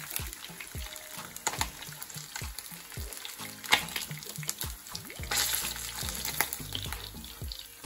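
Pieces of jack fish frying in hot oil in a pan, a steady sizzle, with clicks and taps of a utensil as the pieces are lifted out. A sharper tap comes just before four seconds in.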